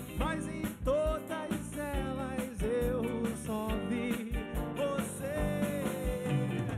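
A band playing live: a man singing at the microphone over electric guitars, bass guitar and drum kit.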